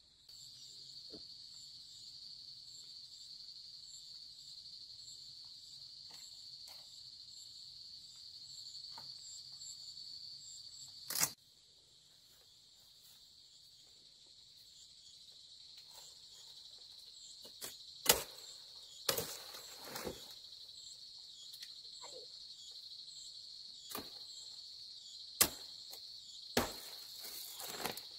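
A steady high-pitched insect chorus, with a handful of sharp knocks scattered through it; the loudest come about eleven seconds in and again around eighteen seconds.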